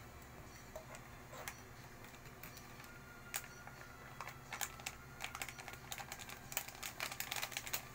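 Plastic instant-coffee sachet crinkling in the hands as it is emptied into a mug: a run of small, sharp crackles, sparse at first and much busier from about halfway through.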